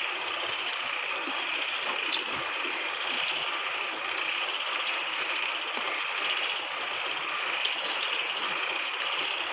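Steady buzzing chorus of forest insects, with faint scattered clicks.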